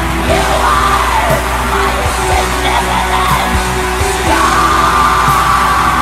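Black metal: a dense, loud wall of distorted band sound with drum hits, and a screamed vocal line over it.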